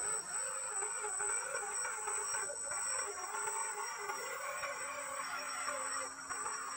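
Electric motor and gear drive of a 1/12-scale MN Model RC crawler whining as it climbs a loose dirt bank. A thin, steady high whine runs under a lower whine that wavers up and down with the throttle.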